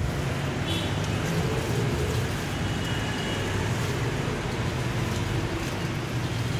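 Steady street traffic noise with a low engine rumble from passing vehicles.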